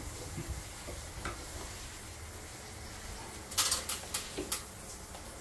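Sharp clicks and rattles of hard plastic and metal parts of a split air conditioner's indoor unit being handled with a hand tool. A cluster comes about three and a half seconds in and two more follow shortly after, over a steady low hiss.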